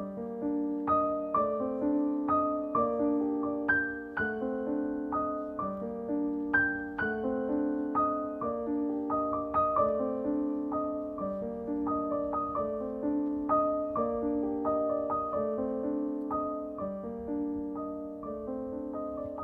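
Soft background piano music: gentle notes played over sustained lower chords.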